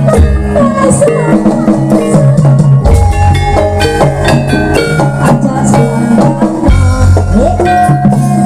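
Live jaranan accompaniment music: an ensemble of drums and tuned percussion playing over a deep, pulsing bass line.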